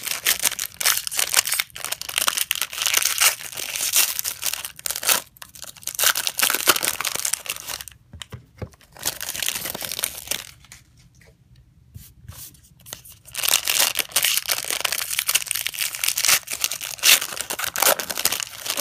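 Trading card pack wrappers being torn open and crinkled: irregular crackling in two long spells, with a quieter lull near the middle.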